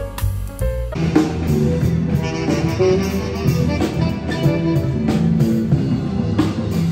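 A short stretch of recorded background music, then, from about a second in, a street band playing live on drum kit, guitar and keyboard.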